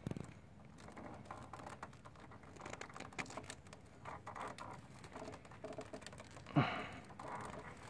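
Faint clicking and tapping of side cutters working at a tough plastic tie strap among scooter wiring, with a louder short sound about six and a half seconds in.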